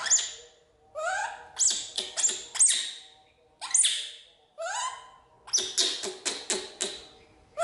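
Baby macaque screaming in repeated bursts of short, shrill, rising squeals, with brief pauses between bursts.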